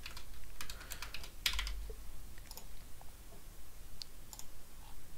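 Typing on a computer keyboard: a quick run of keystrokes in the first two seconds, then a few scattered clicks.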